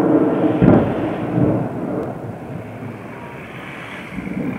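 Low rolling rumble of distant explosions at a burning ammunition depot, with a sharper boom under a second in that dies away over the next few seconds, then a fresh swell of rumbling near the end.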